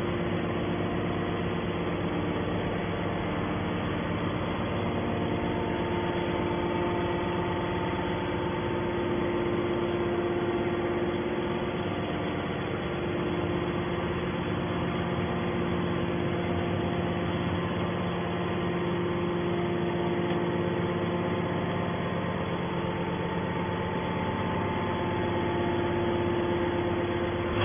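Aluminium can baler's motor running with a steady hum of several held tones, no strokes or impacts.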